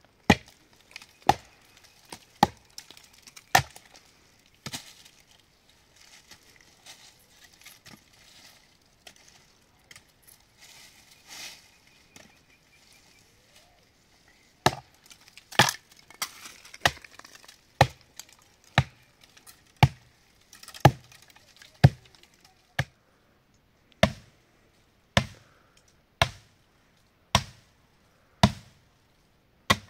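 An axe chopping into a tree's wood, single sharp blows about a second apart: four strikes, a pause of about ten seconds, then a steady run of about fifteen more.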